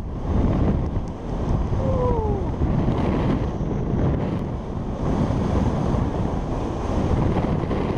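Wind rushing over the microphone of a camera moving fast downhill with a snowboarder, a steady, loud, low rumbling rush. About two seconds in, a brief tone slides down in pitch.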